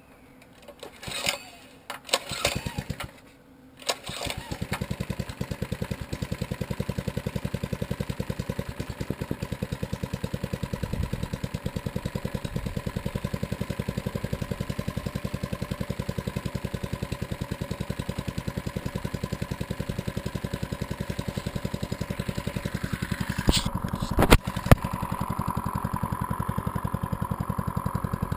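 Baja Motorsports 97cc mini bike's small single-cylinder four-stroke engine being pull-started. Two short pulls of the recoil starter come in the first few seconds, and it catches about four seconds in. It then runs steadily with a fast, even putter. A few sharp clicks come near the end.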